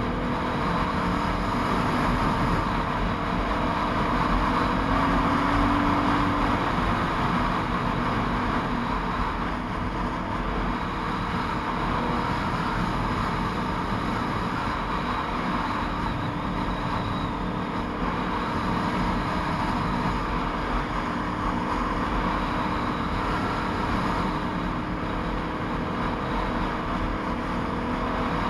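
Motorcycle riding at a steady road speed: wind rushing over the camera microphone, with the engine running steadily underneath.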